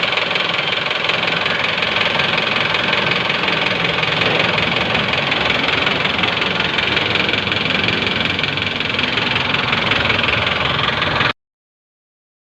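Rebuilt Isuzu 4JB1 four-cylinder diesel engine running steadily with a busy, fast clatter, then cutting off abruptly about eleven seconds in.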